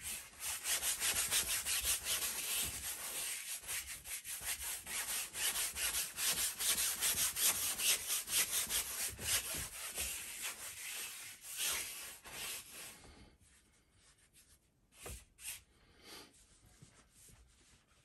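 Wide flat brush scrubbing back and forth over a primed stretched canvas, wetting it with thinner: a quick, continuous run of brush strokes that stops about two-thirds of the way through. A couple of faint knocks follow a little later.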